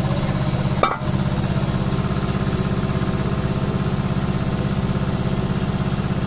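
An engine running steadily at idle, a low hum with a fast even pulse, briefly broken off about a second in.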